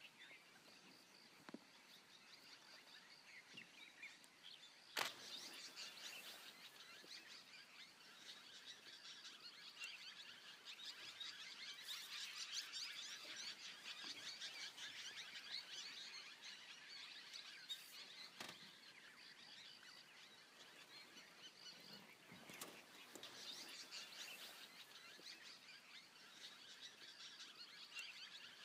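Faint chorus of many small bird chirps and calls, denser and a little louder in the middle, with one sharp click about five seconds in and a few softer knocks later.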